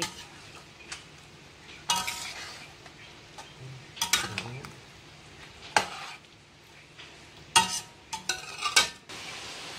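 A metal utensil scraping and clinking against a stainless-steel wok as a thick coconut-milk curry is stirred, with sharp scrapes every second or two and a quick run of them near the end. A faint sizzle of the simmering curry lies beneath.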